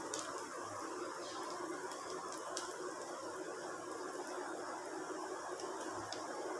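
Dosa batter and oil frying on a hot tawa over a low flame: a faint, steady sizzle with a few small ticks.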